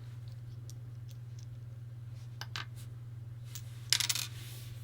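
Small hard parts of a VIC-20 power switch clicking as the switch is handled and opened: a few light clicks, then near the end a quick rattle of several sharp, coin-like clinks.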